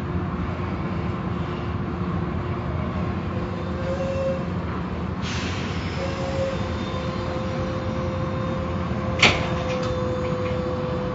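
Automatic car wash machinery running with a steady rumble and whir. A steady whine comes in about four seconds in, and there is a single sharp click or knock about nine seconds in.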